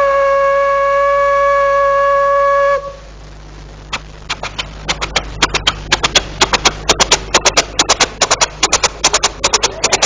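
Coal-fired steam locomotive: its whistle is held on one steady note and cuts off abruptly just under three seconds in. About a second later the engine starts chuffing in short, sharp beats that come faster and faster, the train pulling away and gathering speed.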